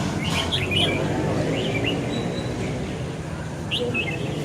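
Red-whiskered bulbuls singing: short bright chirping phrases in three bursts, about half a second in, near two seconds, and near the end.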